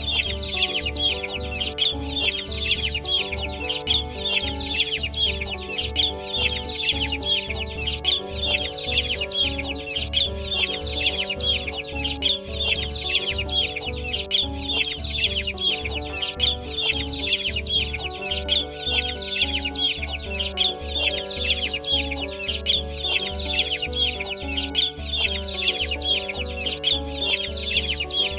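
Chickens clucking and peeping, with many rapid high calls, over background music with a steady beat.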